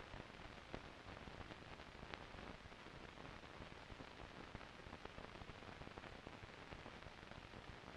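Near silence: the steady hiss and faint scattered crackle of an old film soundtrack.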